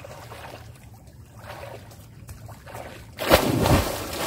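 A person diving into a river, hitting the water with one loud splash about three seconds in.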